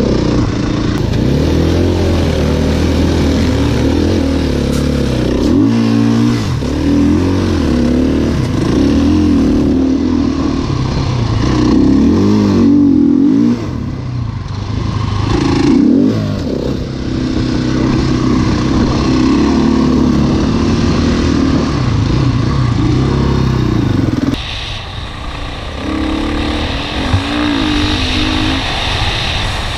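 KTM dirt bike engine revving hard as it rides through soft sand, the pitch climbing and falling again and again with the throttle. Near the end the engine note drops back and is quieter.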